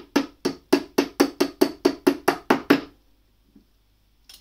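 Small hammer tapping a pin home into a steel-reinforced 3D-printed gear: about a dozen quick, even taps, roughly four a second, which stop a little before three seconds in.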